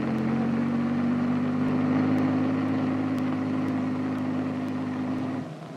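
Bell H-13 light helicopter's piston engine and rotor running as it flies low, a steady drone whose pitch rises slightly, cutting off abruptly near the end.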